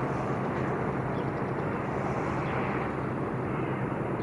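Steady low outdoor rumble with a faint hum, without any distinct event.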